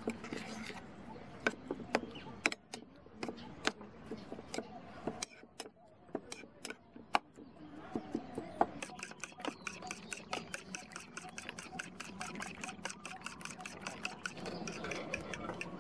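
A metal spoon clinking and scraping against an enamel bowl, irregular taps, while stirring a wet chili-flake mix. From about nine seconds in, rapid, even clicking of a utensil beating eggs against a bowl, several strokes a second.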